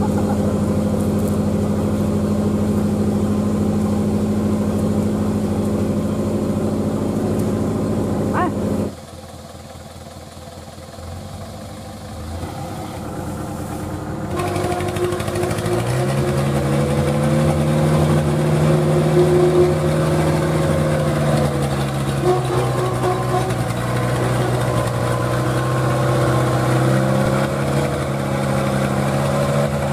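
Diesel engine of a 4x4 Ragasa dump truck running steadily. After a quieter break about nine seconds in, the engine comes back working harder, its pitch rising and wavering as the truck pulls through deep mud on a winch cable.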